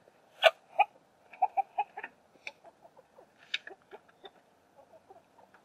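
Hens clucking in short, quick notes, with a few sharp taps as they peck at the red plastic nipple drinkers of a barrel waterer.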